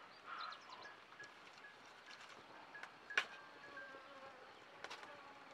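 Wood and green bamboo cooking fire crackling, with a few scattered sharp pops, the loudest about three seconds in, over a faint, broken high-pitched whine.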